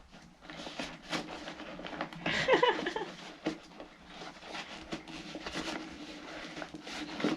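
Handling noises of a dust bag being worked onto a vintage Hoover upright vacuum cleaner: irregular clicks, knocks and rustling, with a louder scuffle about two and a half seconds in.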